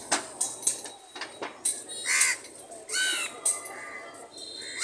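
Short animal calls, each rising and falling in pitch, two of them about two and three seconds in, over scattered clicks.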